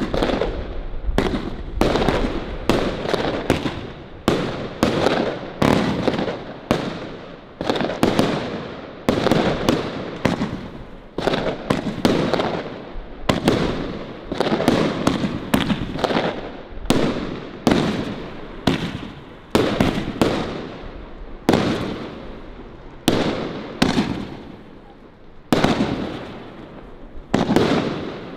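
Funke firework cakes, four 25-shot cakes chained into one 100-shot sequence, firing: a rapid, uneven run of sharp bangs, about one to two a second, each trailing off as the next shot goes.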